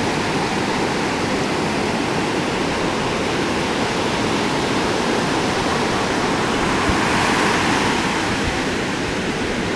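Ocean surf washing up the beach in a steady rush, swelling a little about seven seconds in as a wave comes in.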